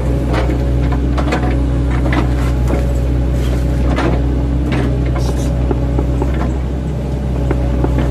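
An 8-ton mini excavator's diesel engine runs steadily under load. Irregular sharp knocks and cracks sound over it as the bucket, fitted with chipping blades, chops oil palm trunks.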